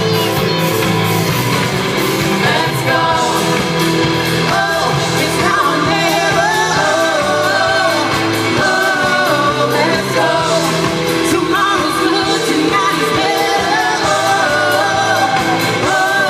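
Loud amplified rock music with a singing voice over a steady band backing.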